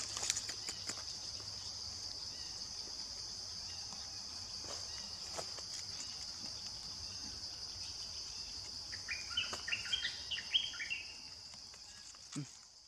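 Steady high-pitched drone of insects in the trees, with a quick run of short chirping calls about three-quarters of the way through and a few light clicks and rustles. The sound fades out at the end.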